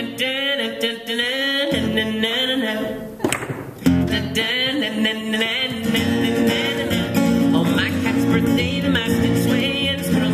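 Acoustic guitar and electric keyboard playing live together. A melody line with sliding notes leads for the first three seconds; from about four seconds in, fuller chords with low notes come in.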